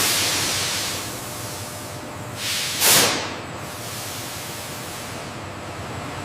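A steady hiss that starts abruptly and is loudest for the first second. About three seconds in comes one short, louder whoosh.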